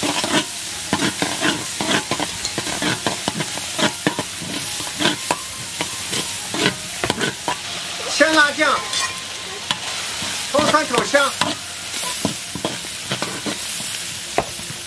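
A metal spatula scraping and knocking against a large iron wok as chopped chilies, garlic and ginger sizzle in hot oil with bean paste, stirred continuously. This is the stage of frying the bean paste until the red oil comes out.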